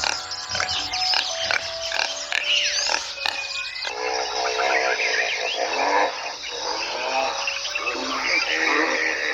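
Animal calls: clicks and short chirps for the first few seconds, then a series of repeated pitched cries that bend up and down.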